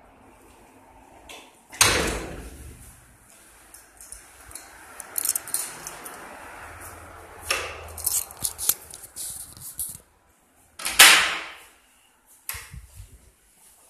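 Doors and an old elevator's metal gate being opened and shut: a loud bang about two seconds in and another about eleven seconds in, with metal rattling and clatter between.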